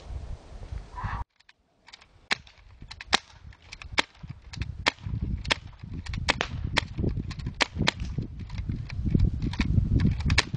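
Two H&K USP CO2 airsoft pistols firing, about twenty sharp pops at an uneven pace of two or three a second, starting about two seconds in.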